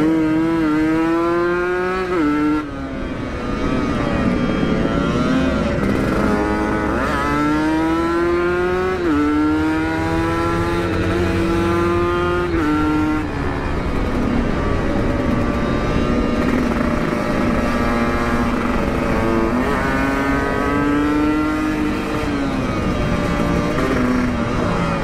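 Kawasaki Ninja motorcycle with an aftermarket Aitech exhaust, ridden under hard acceleration. The engine note climbs, then drops sharply at each gear change, several times over.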